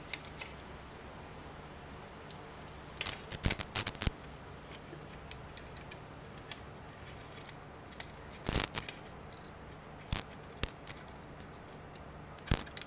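Hard plastic clicking and snapping as an LED panel is pried out of a cut-open DJI FPV drone motor arm shell. The clicks come in short clusters, about three seconds in, again around eight and a half seconds, and near the end, with single clicks near ten seconds, over a faint low hum.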